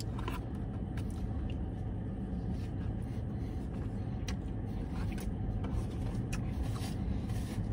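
Steady low hum inside a car cabin, with faint scattered clicks and smacks of someone chewing and handling food.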